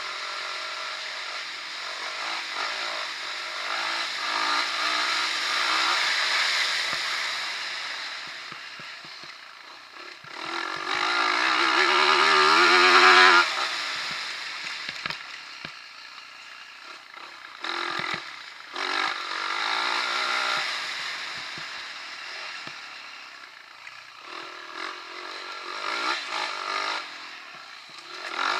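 Dirt bike engine revving up and dropping off again and again as the bike is ridden around a motocross track. The hardest rev climbs in pitch about halfway through and cuts off abruptly.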